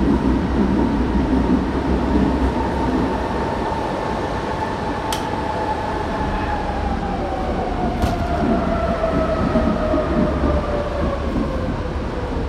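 Berlin U-Bahn G1/1E train running in the tunnel with a steady rumble of wheels on rails. Its motor whine falls slowly in pitch as the train slows. There are two sharp clicks, about five and eight seconds in.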